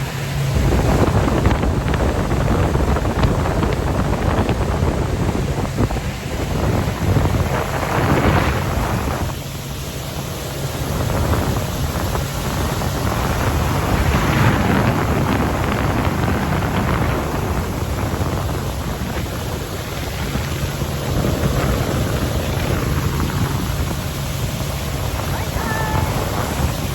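Wind buffeting the microphone over a motorboat's engine running steadily, with gusts swelling and easing every few seconds.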